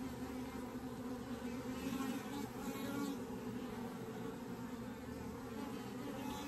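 Honeybee colony buzzing steadily from an opened Layens horizontal hive during a frame inspection. The steady hum sits low. The beekeeper says the hive may sound angry but is not, putting it down to the drones.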